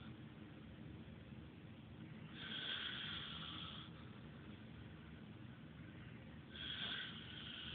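A man snoring: two long snores about four seconds apart, each lasting around a second and a half, the second one near the end.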